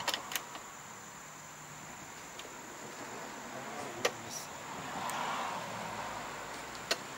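A few sharp clicks of tools and metal parts being handled on a lawn mower wheel hub: two just after the start, one about four seconds in and one near the end. Under them runs a steady high insect trill.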